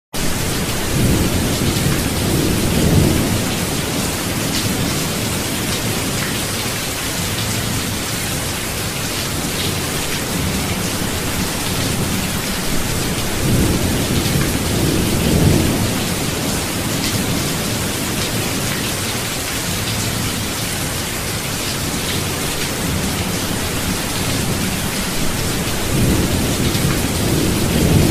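Thunderstorm: steady heavy rain with thunder rumbling three times, near the start, around the middle and near the end.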